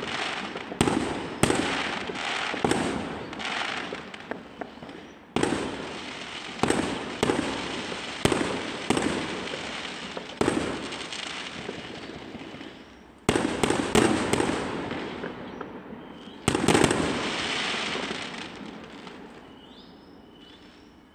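Aerial firework shells bursting: a string of sharp bangs at uneven intervals, several in quick clusters, each trailing off slowly. The bursts stop and the sound fades out over the last few seconds.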